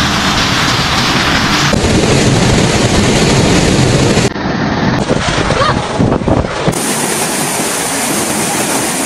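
Loud rush of floodwater mixed with wind buffeting the phone microphones, its character changing abruptly three times as one flood clip cuts to the next.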